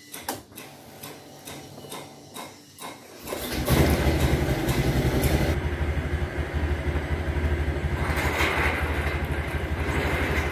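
Honda scooter's single-cylinder engine started about three and a half seconds in, then idling steadily. Near the end a metal gate scrapes as it is pushed open.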